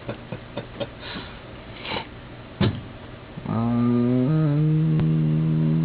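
A man humming, low and steady: one held note starting about three and a half seconds in, then stepping up to a higher note that he holds. Before it, a few faint clicks and one sharp click.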